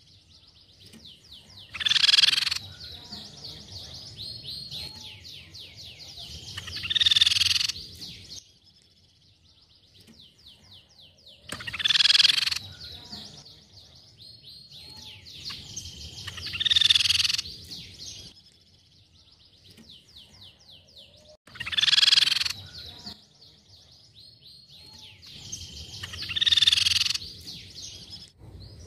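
Crescent-chested babbler (tepus pipi perak) singing in a repeating phrase: a short loud call, then a rapid trill of quick high notes lasting about four seconds, then another loud call, followed by a pause of a few seconds before the phrase starts again.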